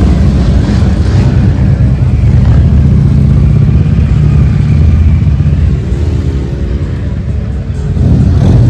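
Motorcycle engines rumbling as bikes ride slowly past on the street, with a steady pitched note for a couple of seconds late on before the rumble swells again.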